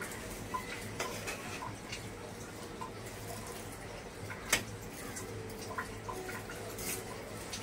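Metal spatula stirring semai vermicelli with sugar and water in a wok, clinking and scraping against the pan, with one sharper clank about four and a half seconds in. A low steady hum runs underneath.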